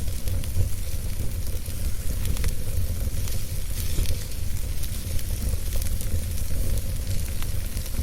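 Wood fire burning with a steady low rumble and hiss, and irregular sharp crackles and pops scattered throughout.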